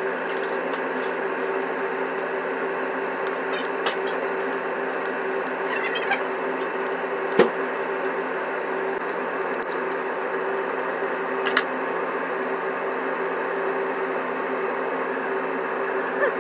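A steady electrical hum with a few fixed tones, like a running kitchen appliance. Over it come a few sharp knocks of a chef's knife on a plastic cutting board while a tomato is sliced, the loudest about halfway through.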